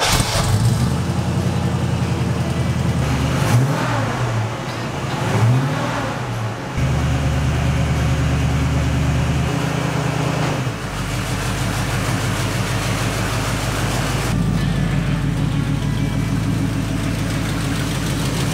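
1974 Jeep Cherokee's engine running through its new Magnaflow exhaust. It is revved twice, about three and five seconds in, then idles steadily.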